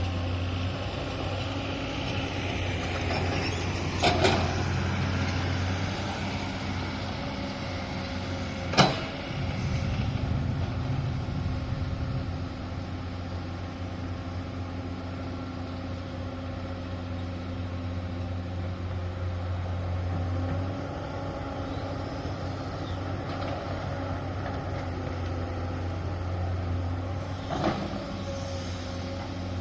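Heavy diesel construction machinery, an excavator or dump truck, running steadily with a low engine hum. A few sharp knocks stand out, the loudest about nine seconds in and others near four seconds and near the end.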